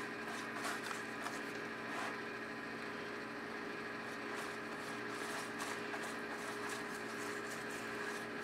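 Faint soft swishes of a pastry brush stroking olive oil and garlic over pita bread, over a steady kitchen hum.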